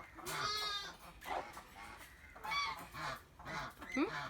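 Geese honking, a series of separate calls one after another.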